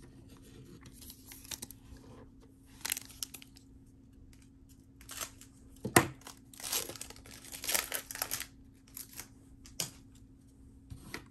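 A trading card pack's plastic wrapper being torn open and crinkled, with cards handled: a string of short rustling, tearing bursts, with a sharp snap about six seconds in.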